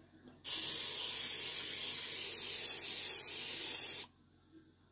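Aerosol can of nonstick cooking spray hissing in one steady spray of about three and a half seconds onto the plates of a mini waffle maker, starting about half a second in and cutting off abruptly.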